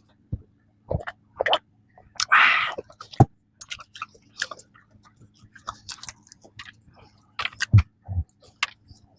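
Close-up eating sounds of a person chewing soft bread and pastry: wet mouth clicks and lip smacks, with a short louder noisy rush about two seconds in.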